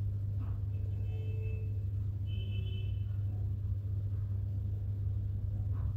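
A steady low hum with no speech, with a few faint short tones about one and two and a half seconds in.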